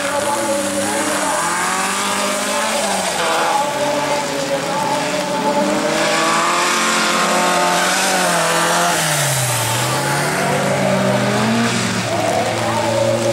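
Several bilcross race cars' engines revving hard together, their pitches rising and falling as they accelerate and lift, over a steady hiss. About ten seconds in, one engine's note drops and climbs again.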